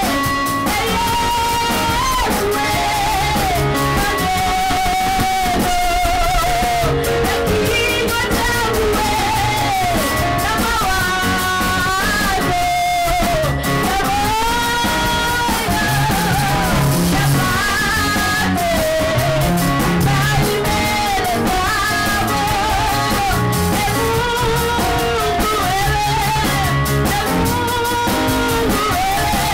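Live gospel worship music: a woman singing over electric bass guitar, drum kit and keyboard.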